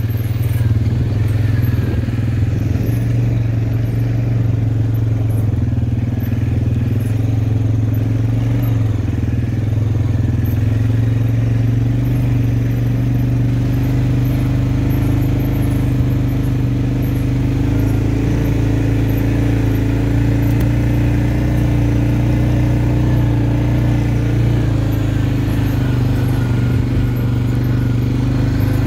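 Engine of a small off-road vehicle running steadily under way, at an even pace, its pitch holding nearly constant.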